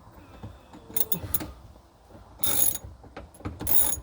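Socket ratchet clicking in two short bursts as it backs out a screw with a 10 mm socket, after a few separate clicks about a second in.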